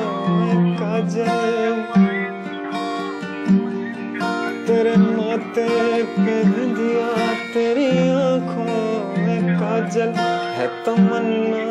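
Acoustic guitar strumming under a male voice singing a slow, melismatic melody with long held notes.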